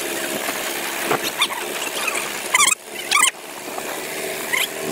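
John Deere tractor engine running as the tractor works through deep mud, with two short, sharp squeals about two and a half and three seconds in.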